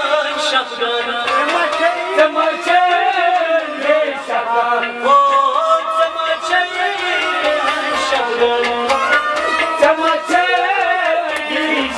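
A man singing a Kashmiri Sufi song (Sufiyana kalam), with a melodic line and regular hand-drum strokes under the voice.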